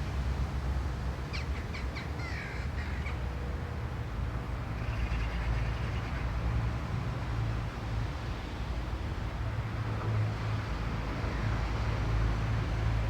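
A crow cawing several times in quick succession, a few harsh calls about a second in. A steady low wind rumble on the microphone runs underneath.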